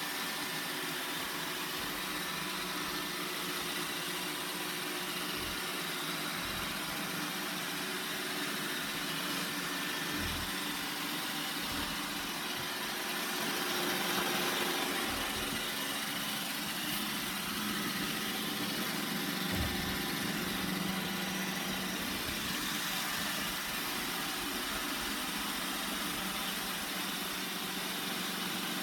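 iRobot Roomba 960 robot vacuum running: a steady whir of its vacuum motor and brushes, swelling slightly about halfway through.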